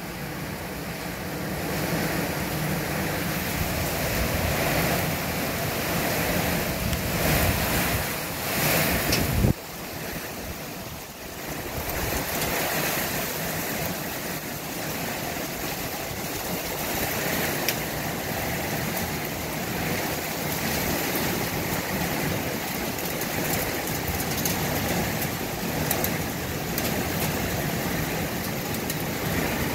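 Torrential rain mixed with hail pouring down, a steady dense wash of noise that drops off suddenly about nine seconds in and builds back a couple of seconds later.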